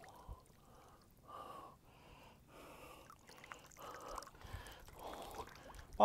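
Near silence, with faint, repeated breaths in short puffs.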